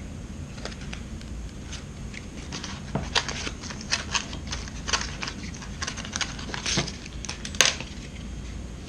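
A blown car door speaker being broken apart by hand: irregular crackling, crinkling and sharp snaps of its plastic frame and cone, sparse at first and then coming thick and fast, with one loud snap near the end.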